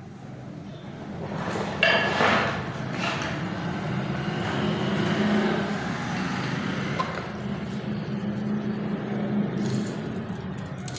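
Light metallic clinks and taps as a flat steel bar is handled, the sharpest about two seconds in, over a steady low hum.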